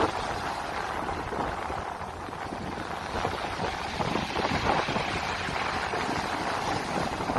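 Sea waves washing onto the shore: a steady rush of surf that swells and eases, with some wind rumble on the microphone.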